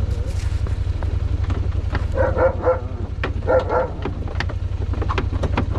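Truck engine idling with a steady low rumble, while a dog barks in two short runs about two and three and a half seconds in. Sharp metal clinks from the snowplow mount and its pin come in the second half.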